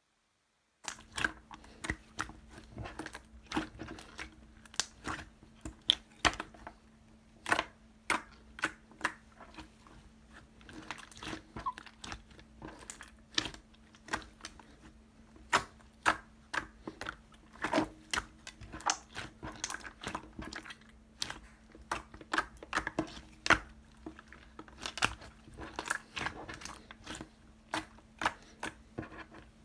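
Clear slime being pressed, squished and stretched by hand, making many irregular sharp clicks and pops. A faint steady hum runs underneath. The sound starts about a second in.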